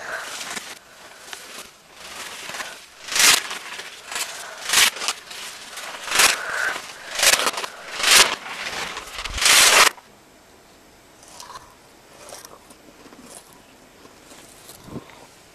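White paper or tissue being crumpled and torn in a run of loud rustling bursts, about one a second. They stop abruptly about ten seconds in, leaving only a few faint rustles.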